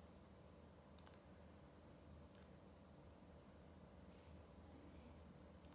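A few sharp pointer-button clicks while choosing Restart from the Windows Start menu: a quick pair about a second in, another about two and a half seconds in, and one more near the end.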